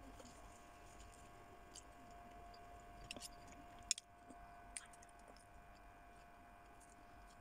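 Faint chewing and mouth sounds of a person eating. A few small sharp clicks are heard, a louder one about four seconds in, over a faint steady hum.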